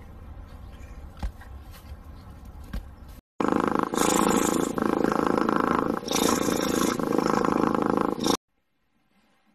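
A loud, rough rumbling animal sound, coming in waves for about five seconds and stopping abruptly. Before it, for about three seconds, there is a quieter low outdoor rumble with a few sharp taps, which cuts off.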